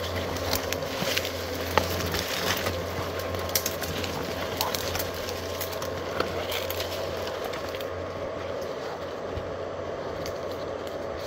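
Footsteps crunching through dry leaf litter and twigs, with branches brushing and snapping against clothing, a dense run of crackles that thins out over the last few seconds; a steady low hum runs underneath.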